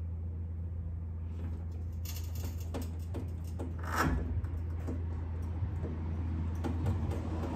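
Floor jack letting the car's rear axle down: scattered metal clicks and knocks, with a short creak about four seconds in, over a steady low hum.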